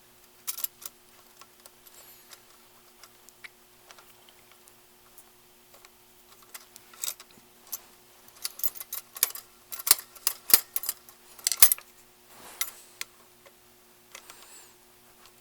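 Irregular small metallic clicks and taps of a Phillips screw and screwdriver being worked into the choke bracket on a carburetor, busiest in the second half. A faint steady hum runs underneath.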